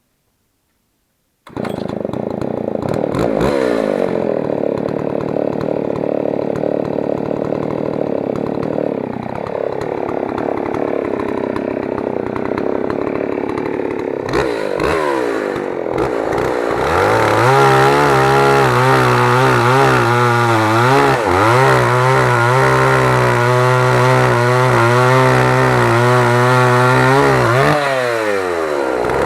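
Jobu L860 chainsaw running. It cuts in abruptly after a moment of silence, runs at a lower, wavering speed for the first half, then is held at a much higher speed from a little past halfway, dipping briefly twice near the end.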